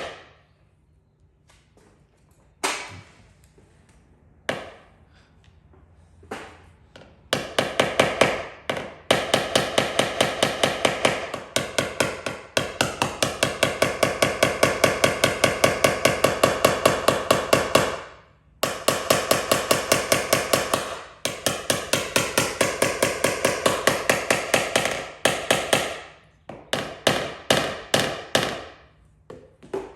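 Paintless dent repair hammer and tap-down tool tapping on a car body panel, knocking down the high crown around a dent. The light, quick metallic taps come in runs of about five a second with a ringing tone, broken by short pauses.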